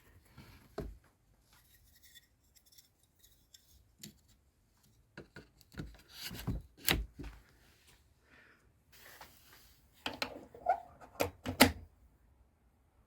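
Irregular clicks, knocks and rubbing of metal parts and tools being handled by hand, with two busier clusters of sharp knocks, one in the middle and one near the end.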